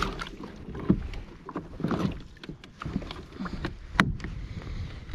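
Irregular knocks and clunks on an Old Town pedal kayak's plastic hull and fittings as gear is handled in the cockpit, with one sharp click about four seconds in.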